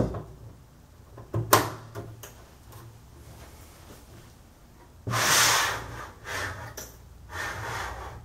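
Telescoping metal mid beam of a bed frame being handled and slid: a sharp click about a second and a half in, then a longer scraping slide about five seconds in, followed by a few shorter scrapes.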